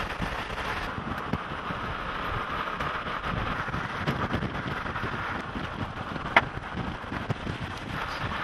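Steady road and wind noise of a car driving, heard from inside it, with wind on the microphone. A brief sharp click about six and a half seconds in.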